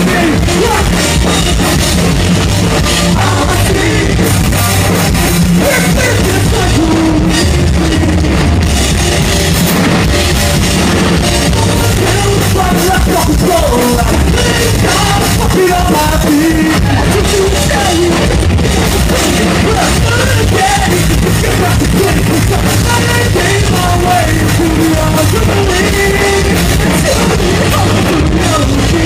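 Punk rock band playing live: drums, electric guitars and bass, loud and continuous.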